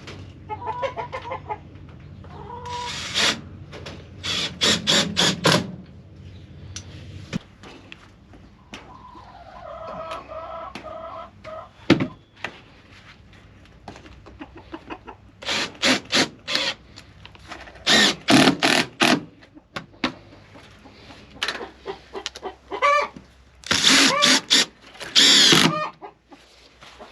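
Young chickens clucking, with several brief runs of sharp, rapid sounds, the loudest about three to five seconds in and again near the end.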